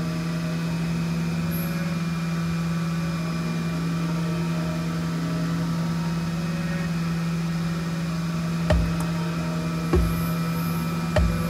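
Haas UMC-750 five-axis CNC mill cutting a metal block: a steady machining hum with one strong low tone and fainter tones above it as the spinning cutter takes its cut. In the last few seconds come three dull knocks about a second apart.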